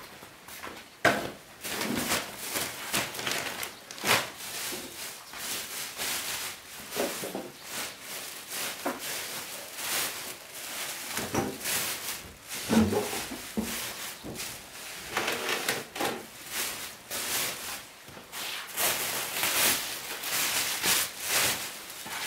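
Broom sweeping a floor in repeated, irregular brushing strokes, about one or two a second, with a few sharper knocks.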